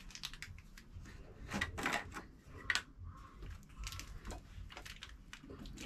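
Faint, scattered clicks, knocks and rustles of small objects being handled, with a cluster of them about two seconds in.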